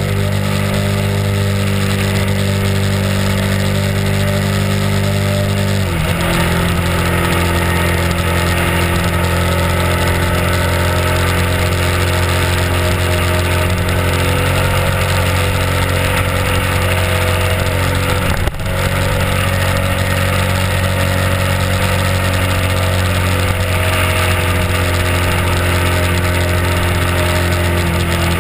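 Honda RC51's 90-degree V-twin engine running steadily at cruising speed. The engine note drops slightly about six seconds in, and the sound dips briefly about two-thirds of the way through.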